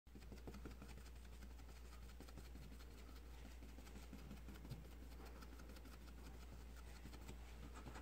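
Paintbrush stippling lacquer paint onto textured foam board: faint, rapid, irregular taps and scratches of the bristles against the foam. A steady low hum runs underneath.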